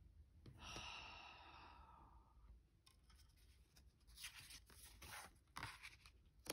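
Faint tarot-card handling: cards sliding and rustling against each other and across a wooden tabletop, in a few short scrapes near the end. A soft breath out, like a sigh, fades away between about half a second and two and a half seconds in.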